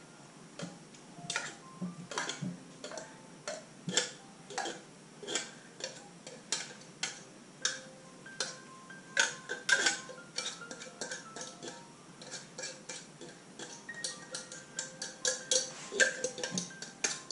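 Irregular clicks and taps of a metal utensil against a small plastic strainer as canned tuna is pressed to drain its oil. Faint background music plays underneath.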